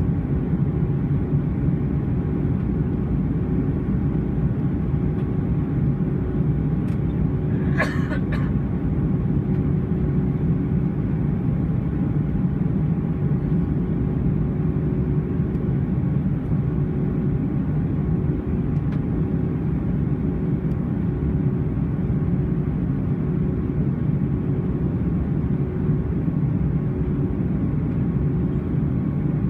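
Airbus A320 cabin noise in flight: a steady, deep rush of engine and airflow noise with faint steady hums over it. A brief click sounds about eight seconds in.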